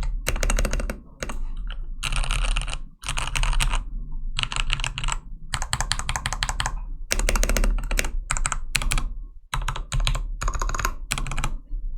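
Gigabyte K83 mechanical keyboard with lubed linear Cherry MX Red switches and PBT keycaps being typed on fast, in quick runs of keystrokes broken by brief pauses.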